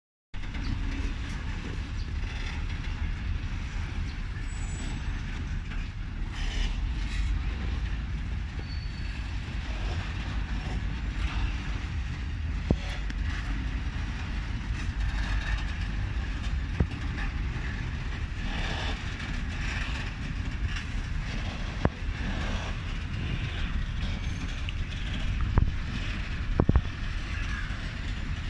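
EMD G16 diesel locomotive's 16-cylinder two-stroke engine running steadily while shunting freight wagons, with a few sharp knocks scattered through the second half.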